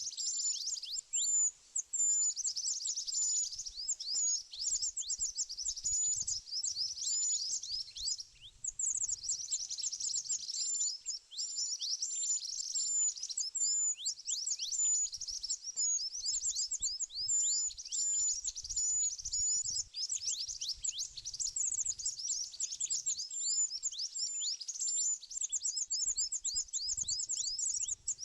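Bird calling: a rapid, steady stream of high, thin chirps, each sweeping downward, with only a few short breaks.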